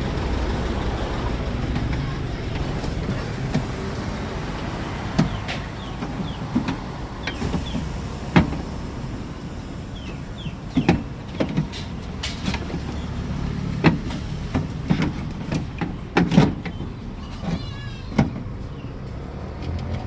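Scattered sharp clicks and knocks over a steady low rumble, from hands and tools working on a pickup's door and its lock.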